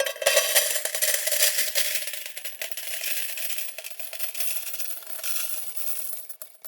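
Metal coins dropped in a heap, a sudden clatter followed by dense jingling and rattling with a steady metallic ring as they settle, tapering off over about six seconds before cutting off abruptly.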